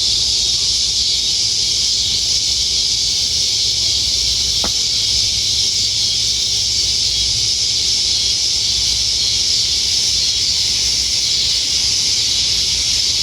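Steady high-pitched hiss of an evening insect chorus, with a low hum beneath and one faint click about four and a half seconds in.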